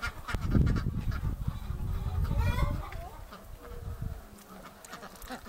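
Domestic ducks calling with honking quacks, over a loud low rumble during the first three seconds.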